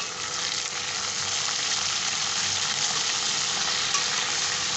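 Small pieces of boiled beef trotter meat sizzling steadily as they fry in oil with garlic-ginger paste and whole garam masala.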